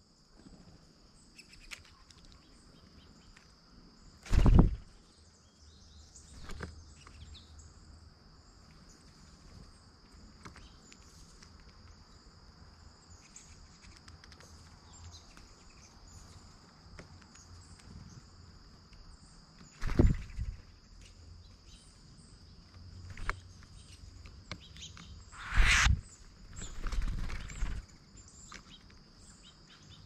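Steady, high-pitched drone of insects from the surrounding woods. Over it come a few loud, brief flutters and knocks as birds land on and leave the peanut feeder right by the microphone: once a few seconds in, once about two-thirds through, and twice near the end.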